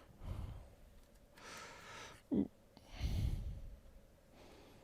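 A man breathing out and sighing close to the microphone, three breaths over a few seconds, with a short hum in between.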